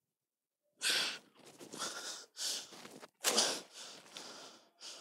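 A man's heavy, gasping breaths: about six loud, noisy breaths in a row, starting about a second in.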